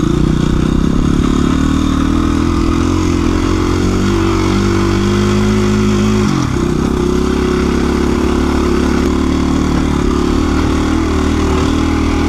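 KTM 350 EXC-F dirt bike's single-cylinder four-stroke engine running under throttle as it climbs a dirt trail. The revs dip briefly and pick up again about six seconds in.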